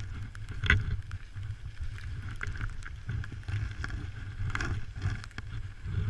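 Child's skis sliding and scraping over snow, under a low, uneven wind rumble on the microphone, with one sharp knock a little under a second in.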